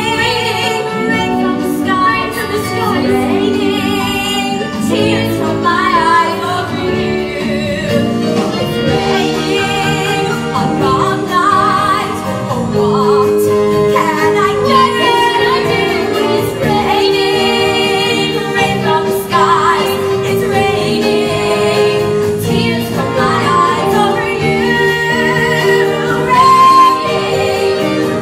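A woman singing a slow musical-theatre ballad into a microphone, with instrumental accompaniment that holds one long low note under her voice through the middle.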